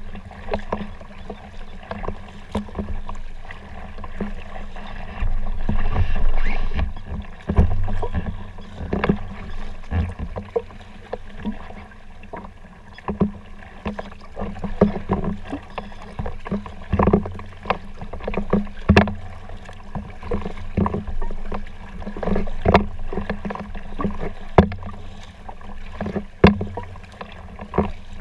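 Folding sea kayak being paddled: paddle blades dipping and splashing in the water with sharp knocks against the boat, about one stroke a second, over a steady low rumble.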